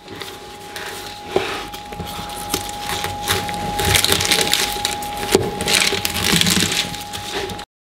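A large kitchen knife saws and crunches lengthwise through a whole ripe pineapple, rind and all, in repeated strokes. There are two sharp clicks, and the sound cuts off abruptly near the end.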